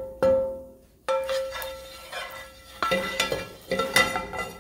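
A wooden spatula spreading oil around a metal frying pan, knocking against the pan several times; the pan rings briefly after each knock.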